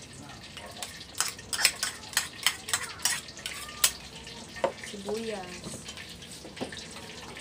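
Metal fork tapping and scraping a small ceramic bowl in a quick run of sharp clicks, knocking chopped onion into a stainless steel mixing bowl. A few scattered clinks follow as a spoon stirs in the steel bowl.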